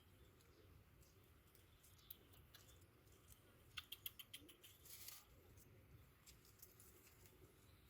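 Near silence, with a quick run of faint clicks about four seconds in and a brief soft rustle just after.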